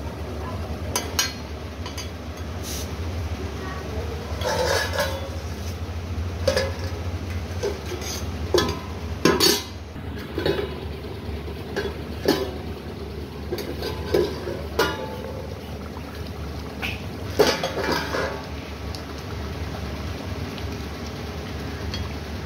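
Steel ladle stirring fish curry in a metal kadai, clinking and scraping against the pan in irregular strokes, with a steel lid set on and taken off. A steady low hum runs underneath.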